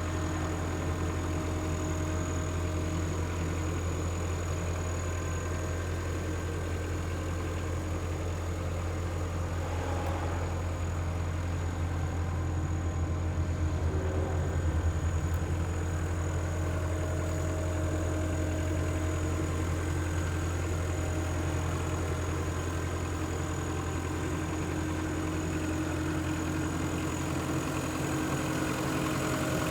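Caterpillar 257B skid steer's diesel engine idling steadily, with a faint high whine held above it.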